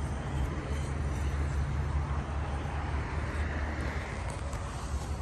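Steady low vehicle rumble with an even outdoor hiss, no distinct events.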